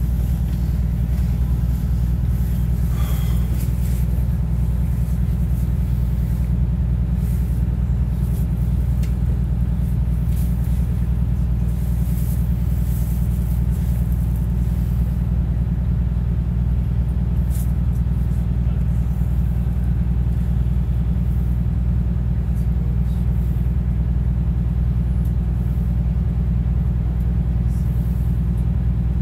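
MCI Classic city bus's diesel engine and drivetrain running with a steady low drone, heard from inside the passenger cabin while the bus is moving, with a few faint clicks and rattles.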